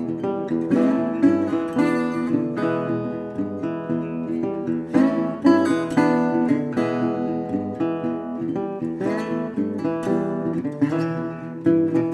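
Background music played on plucked acoustic guitar: a steady, quick succession of picked and strummed notes.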